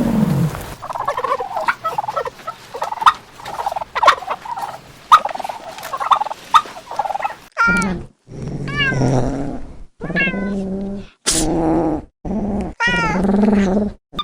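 Animal calls: a fast run of short chattering calls for the first half, then about six drawn-out, pitched calls whose pitch bends, each followed by a short pause.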